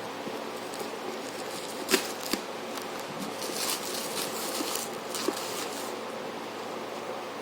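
Shoe box and packaging being handled: soft rustling and a few light taps and clicks, over a steady buzzing hum.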